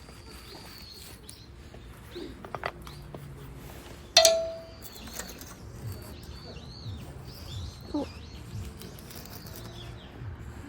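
Small birds chirping on and off in the woods. About four seconds in, a single sharp metallic clink rings briefly on one tone, the loudest sound in the stretch.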